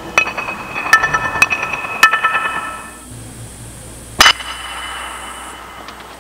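Ceramic tile fragments knocked together in sharp clinks, each with a short bright ring: four clinks in the first two seconds, then a single louder clink about four seconds in.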